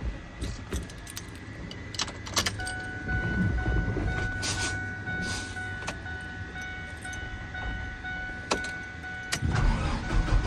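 Clicks of keys and switches in a boom truck's cab while a steady dash warning tone sounds, then near the end the truck's engine cranks and catches, a low rumble that swells as it starts running.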